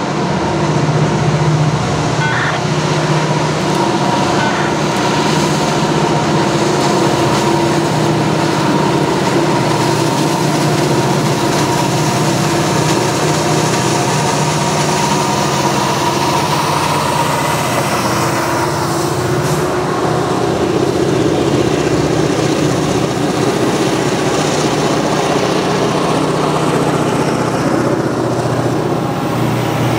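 Norfolk Southern diesel freight locomotives, several units working together, running loud and steady with a drone of engine tones. About two-thirds of the way through, the pitch drops as they pass close by. After that the freight cars roll on behind.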